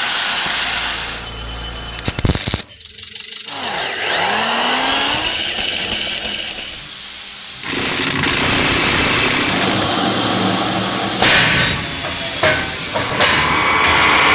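Workshop power-tool sounds cut together in quick succession, such as an angle grinder on metal and a metal lathe running, the sound switching abruptly several times, with a rising whine about four seconds in.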